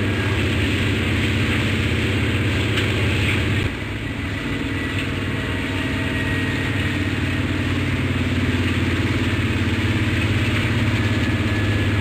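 Helicopter running, a steady fast rotor chop over a low engine drone. The level drops suddenly just under four seconds in, then slowly builds back up.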